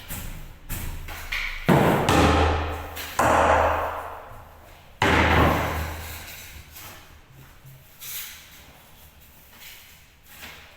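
A series of five heavy bangs a second or more apart, each starting suddenly and dying away over a second or two, with the second through fourth the loudest.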